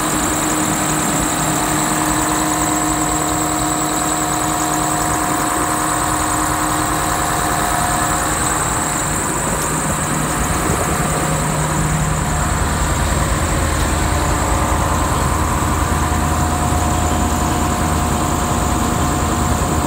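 Claas Lexion 760 combine harvester's Mercedes-Benz V8 diesel engine running steadily, heard up close, with a deeper hum strengthening about twelve seconds in.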